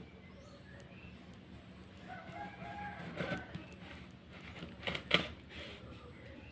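A rooster crowing faintly in the background, one call of over a second that starts about two seconds in. A few sharp knocks follow, a kitchen knife cutting lemons in half.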